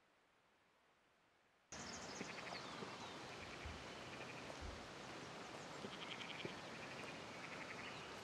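Near silence, then about two seconds in an outdoor countryside ambience cuts in: a steady hiss of background noise with repeated short, rapidly pulsed chirping trills and a couple of soft low thumps.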